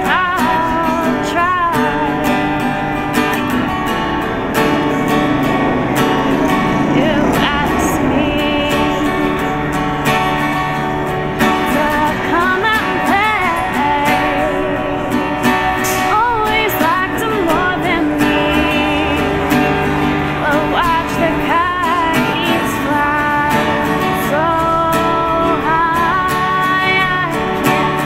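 A woman singing an indie folk-pop song live, accompanying herself on a strummed acoustic guitar, with wavering vibrato on her held notes.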